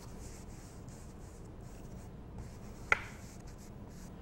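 Bristle brush scrubbing oil paint onto a stretched canvas in repeated soft swishes, with a single sharp click about three seconds in.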